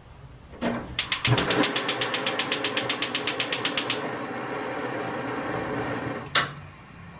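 Gas stove burner being lit: the igniter clicks rapidly, about ten times a second, for about three seconds over the hiss of gas until the burner catches. The flame then hisses steadily until a single sharp click, after which the sound drops.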